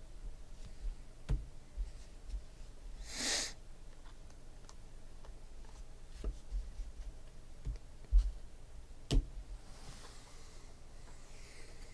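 Glossy trading cards handled on a tabletop: soft taps and clicks as they are shuffled and squared, a brief swish about three seconds in, then a thump and a sharp click near the end as the stack is set down.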